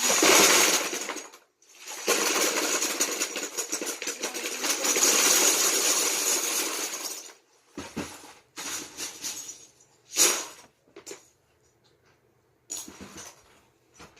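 Loose plastic Lego bricks poured into a container: a dense clattering rattle for about a second, then a longer pour of about five seconds, followed by scattered clicks and rattles of bricks being handled.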